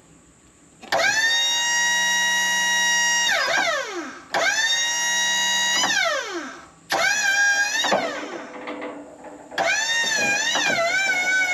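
Wood-Mizer LT40 sawmill's motors whining in four short runs, each spinning up to a steady pitch and falling away as it stops; the last run wavers in pitch as if under load.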